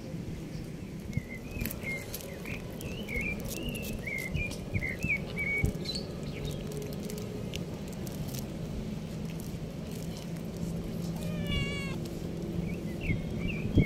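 Kittens meowing, with one wavering, falling meow about two-thirds of the way through.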